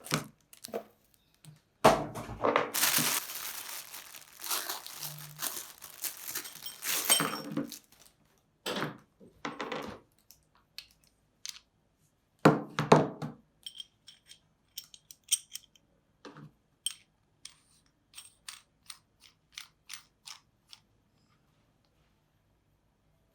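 Packaging being opened: several seconds of crinkling and tearing, a few more short rustles, then a run of light, irregular clicks and taps as small parts are handled, which stop near the end.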